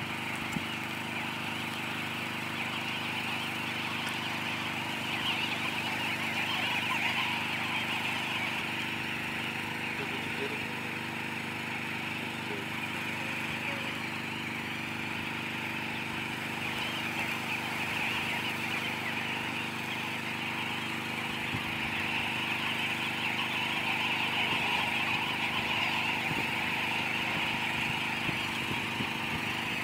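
A large flock of Namaqua sandgrouse calling continuously in a dense chatter that swells twice, over the steady low hum of an idling engine.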